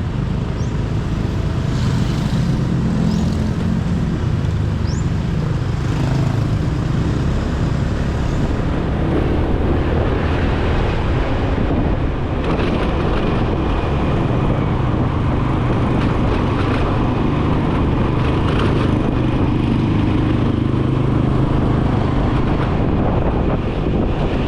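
Motorcycle taxi's engine running under way, mixed with wind and road noise. The engine note shifts up and down a few times as the bike changes speed.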